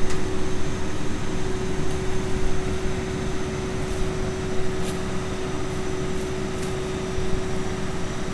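Toyota forklift running steadily: a constant humming whine over a low rumble.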